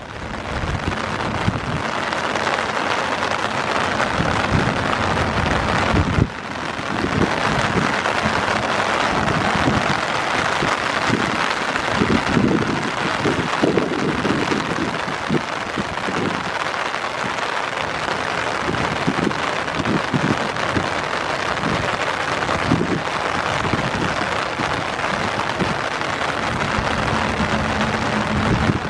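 Heavy rain falling steadily in a dense hiss, with gusts of wind buffeting the microphone. A low steady hum joins in near the end.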